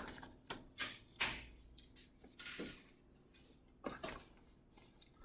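Faint, irregular clicks and light knocks of objects being handled in a small room, a few spaced out over several seconds.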